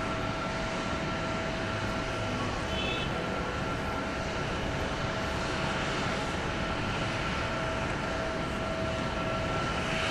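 Jet airliner engines running: a steady rushing noise with a constant whine on top, growing a little louder past the middle.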